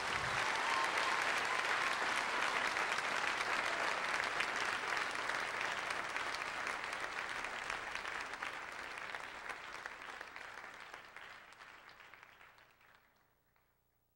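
Audience clapping and applauding, a dense patter of many hands that fades out over the last few seconds.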